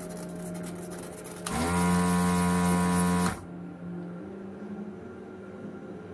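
Electric vacuum desoldering gun's pump running for about two seconds, starting about one and a half seconds in and cutting off sharply, while it sucks molten solder from a RAM chip's pins. A steady low hum runs underneath.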